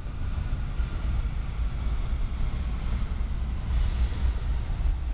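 Low, steady rumble of a Norfolk Southern diesel locomotive slowly drawing an empty coal train toward the station, likely as it slows to stop.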